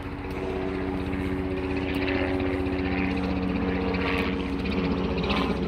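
A steady engine drone with a fast low throb and several held tones.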